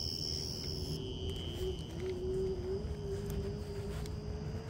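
Electric scooter's motor whining in sport mode on an uphill climb, one steady tone creeping slowly higher in pitch, over a low rumble. Crickets chirp at first and fade out about a second in.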